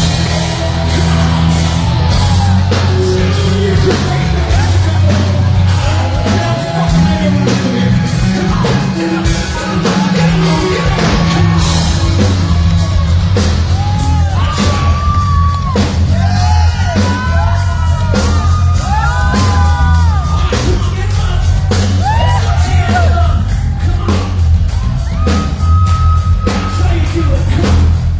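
Live hard-rock band playing loud: distorted electric guitars, bass and drums, with singing and yelling over them.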